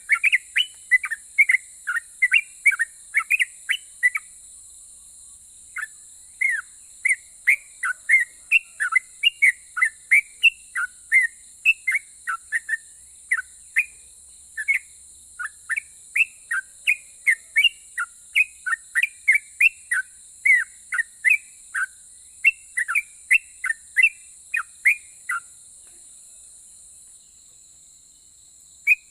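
Yellow-vented bulbul (trucukan) singing a fast run of short chirping notes, a few each second, with a brief pause about four seconds in. The song stops a few seconds before the end.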